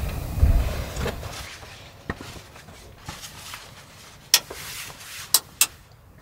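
Handling noises: a dull thump about half a second in, then scattered light knocks and a few sharp clicks, the sharpest about four seconds in.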